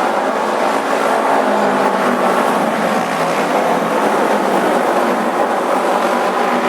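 Auto race motorcycles running as a pack around the oval track, their engines blending into one loud, steady drone with shifting pitch.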